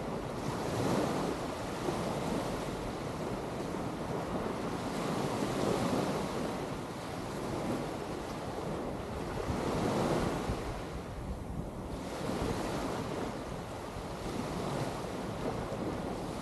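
Sea waves washing in, with wind blowing on the microphone; the noise swells and eases every couple of seconds.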